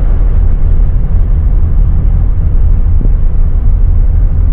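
1984 Chevy G20 van driving on the road: a loud, steady low rumble of road and wind noise.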